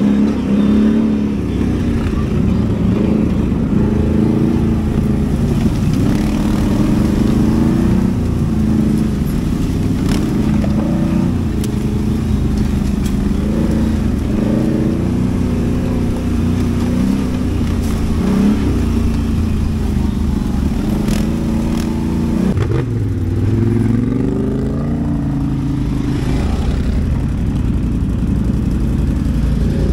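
ATV (quad bike) engine running under throttle, its revs rising and falling as it is ridden; about two-thirds of the way through the revs drop and then climb again.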